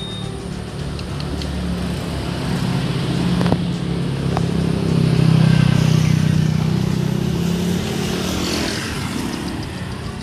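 A motor vehicle's engine passing by, growing louder to a peak about halfway through and then fading away.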